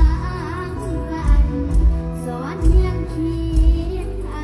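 A young girl singing a Thai mor lam song into a microphone over amplified band backing, her voice wavering with vibrato over deep bass hits.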